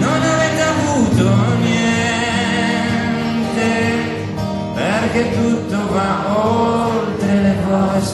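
A man singing to two acoustic guitars, with sung phrases over held guitar chords.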